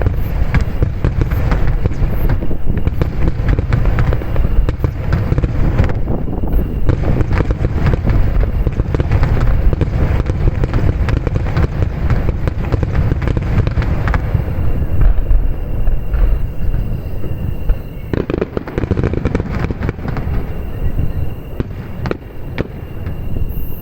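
Dense barrage of aerial firework shells bursting in the finale of a fireworks display: a rapid, continuous run of booms and crackling, easing off somewhat in the second half.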